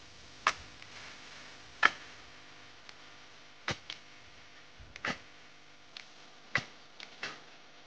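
Hand hoe chopping into loose soil: sharp, separate strikes, roughly one a second and unevenly spaced, the strongest a little under two seconds in.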